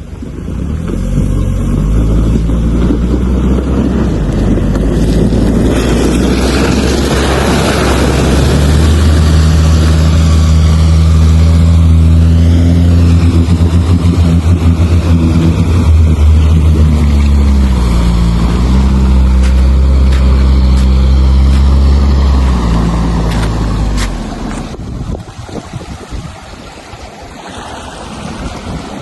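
All-terrain vehicle's engine running hard under load with a steady drone, its pitch stepping up about nine seconds in and dipping briefly around eighteen seconds, over a rushing noise. The engine eases off near the end.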